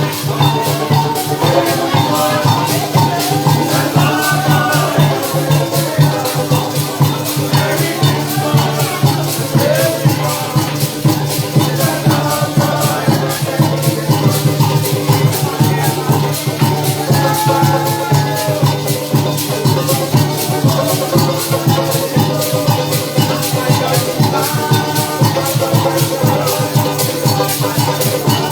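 Parang music played live by a band, with maracas shaking a fast, steady rhythm over pitched string instruments and a steady bass line.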